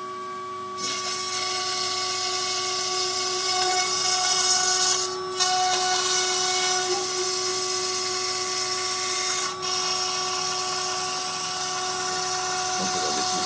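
CNC router spindle running with a steady whine while its bit cuts into a white sheet. A high hissing cutting noise comes in about a second in and dips briefly twice.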